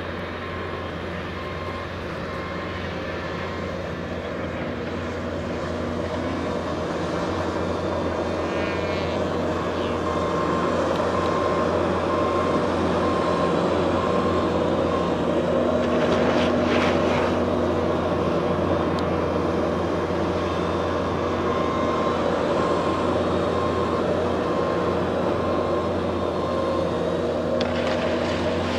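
Radio-controlled aerobatic model airplane in flight, its motor and propeller droning steadily and growing louder through the first half as it comes nearer.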